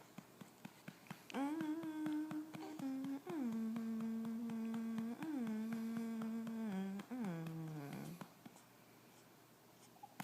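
Rapid light pats on a baby's back, about five a second, for burping. Over them a voice holds long humming notes, first one pitch and then a little lower, and slides down near the end.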